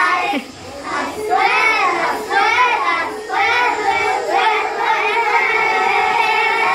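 A group of young kindergarten children singing together loudly, in short phrases with brief breaks between them.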